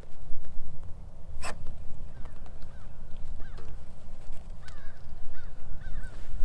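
Strong wind buffeting the microphone as a steady low rumble, with one sharp knock about a second and a half in and several short, faint bird calls in the second half.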